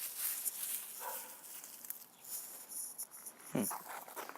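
Two short animal calls, one faint about a second in and a stronger one near the end, over faint outdoor background noise.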